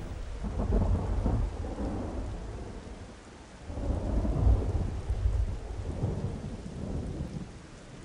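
Thunderstorm sound effect: deep rolling thunder rumbles over a steady rain hiss. The loudest rumble swells up about four seconds in, and the sound fades toward the end.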